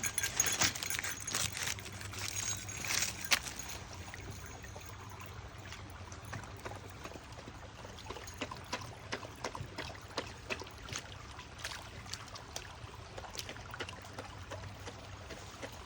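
Mini poodle pawing and splashing in shallow water: irregular small splashes and trickling, busier and louder in the first few seconds, then lighter scattered splashes.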